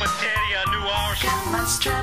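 Instrumental music from a song: a melody line over a backing track, with no singing.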